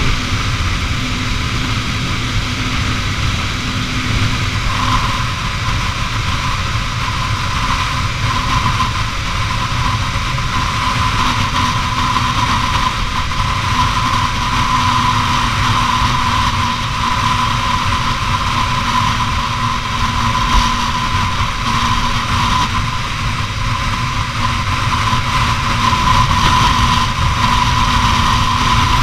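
Honda CBR250R's single-cylinder engine running at a steady highway cruising speed under a constant rush of wind and road noise. The loudness rises slightly near the end.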